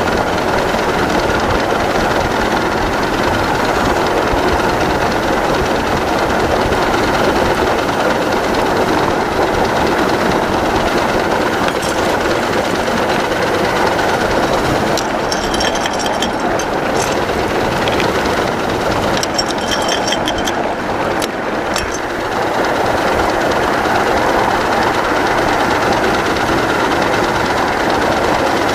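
A 1-inch-scale Little Engines Pacific live steam locomotive running along the track, heard from the riding car: a steady, dense mix of steam exhaust and wheels on rail. Around the middle come clusters of clicks with short high-pitched ringing.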